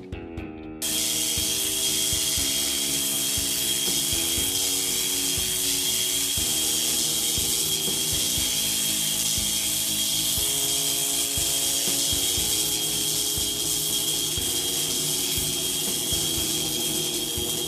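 A dental 'rinse blast' spray gun sound effect firing: a loud, steady hissing blast with a constant high whine. It starts about a second in and holds without a break, with background music underneath.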